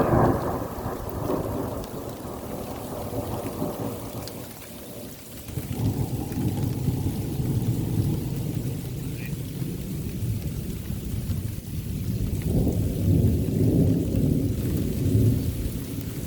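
Thunder rumbling in long rolling swells, one near the start, another about six seconds in and a third near the end, with rain falling.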